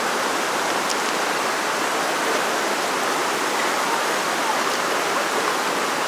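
A fast mountain river running in a steady, even rush of water.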